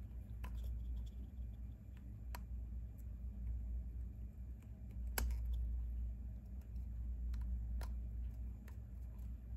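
Scattered small clicks and taps of hard resin-printed parts being handled as a stuck piece is worked loose, the sharpest click about five seconds in, over a low steady hum.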